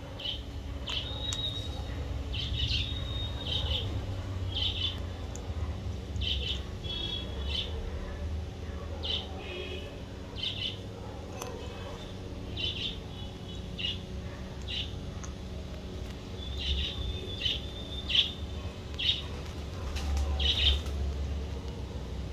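Birds chirping: short high calls repeated about once a second, with a few longer trilled phrases, over a steady low rumble.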